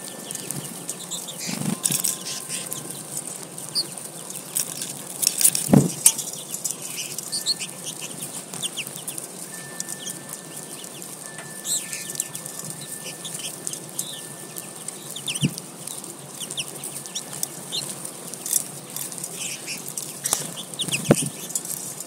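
American goldfinches at a tube feeder: many short, high chirping calls scattered throughout, with wing flutters and a few sharp knocks, the loudest about six seconds in and near the end.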